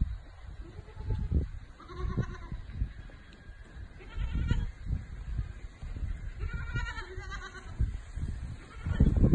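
Young Sawakni rams bleating, about three separate calls a couple of seconds apart; the last is the longest.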